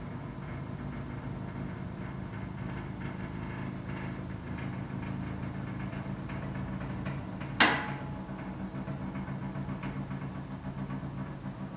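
A single sharp, loud crack of a spinal joint released during a chiropractic adjustment, about two-thirds of the way through, over a steady low mechanical hum.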